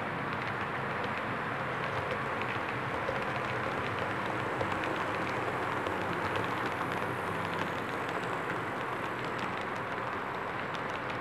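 Model train running past on layout track: a steady whirring rumble of locomotive motors and rolling wheels, with a rapid patter of small clicks from wheels over rail joints.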